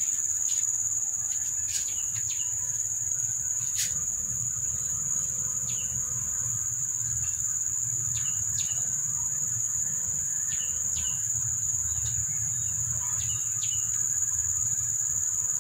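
Insects trilling in one steady high unbroken note, with short falling bird chirps scattered over it every second or so and a low steady rumble underneath.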